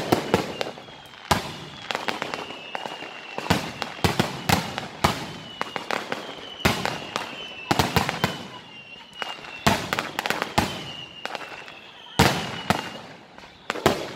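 Aerial fireworks display: a rapid, irregular series of shell bursts and sharp cracks, the loudest bang near the end. Thin high whistles slide slowly down in pitch between the bangs.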